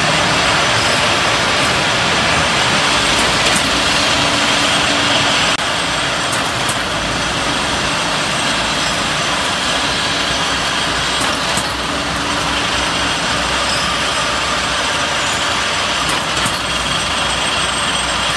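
Steady machine-shop noise from multi-spindle screw machines running, a continuous hiss with occasional faint clicks. The noise drops slightly in level about five and a half seconds in.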